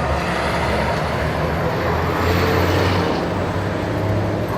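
Busy Indian city street traffic: mixed engines of cars, motorbikes and auto-rickshaws running, with one vehicle passing close and swelling loudest about halfway through before fading.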